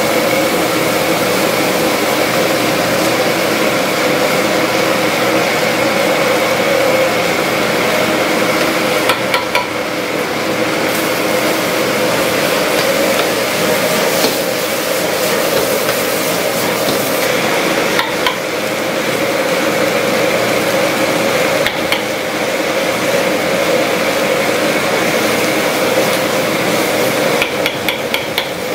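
Food stir-frying in a wok over a high-flame gas burner: a steady rush of burner and sizzle, with a metal ladle clanking and scraping against the wok a few times, about nine seconds in, again at intervals, and in a quick cluster near the end.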